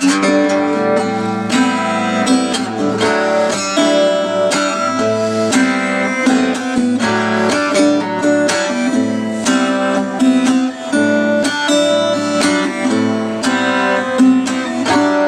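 1950s Berera Venezia three-quarter-size acoustic guitar with a spruce top and Martin Silk & Steel strings, strummed in a steady rhythm of chords. It comes in suddenly and loud at the start.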